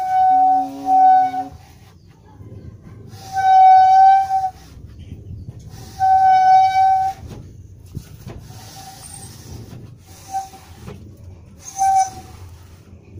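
Home-made window-cleaner wiper dragged across a glass pane, squeaking on each stroke. There are several long, steady-pitched squeaks in the first seven seconds, then two short ones near the end.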